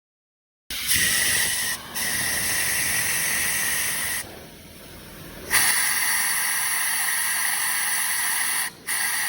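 Pressurized spray hissing in long, even bursts of a few seconds each, with brief breaks between them and one longer pause in the middle.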